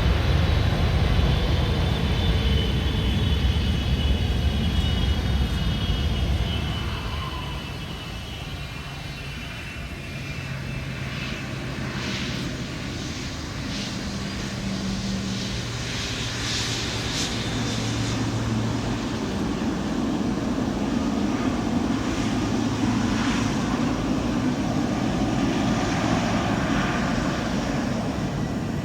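Jet airliner engines: a loud rumble with a whine falling in pitch that fades away after about six seconds, then engine noise builds up again and holds steady through the rest.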